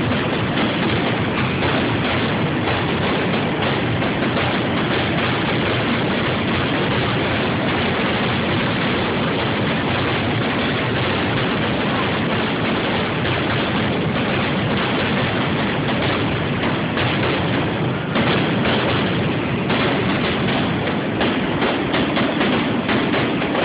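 Fireworks finale barrage: a continuous run of rapid explosions and crackle that blur into one unbroken rumble, a little louder about 18 seconds in.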